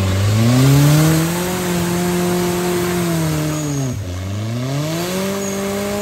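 An off-road car's engine revved hard and held at high revs for a few seconds. The revs drop sharply about four seconds in, then climb and hold high again.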